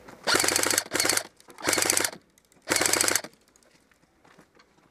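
Airsoft GI G4-A5 Dune Knight M4-style electric airsoft rifle firing four short full-auto bursts, a fast even rattle of the gearbox cycling and BBs leaving, the last burst about three seconds in.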